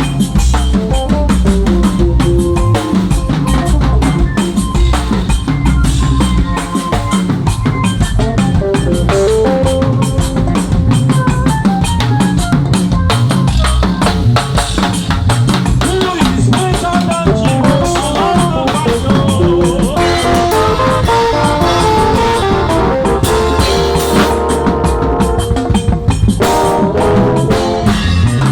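Drum kit played in fast runs and fills, with kick, snare and rimshots, over melodic music with bass and keys underneath.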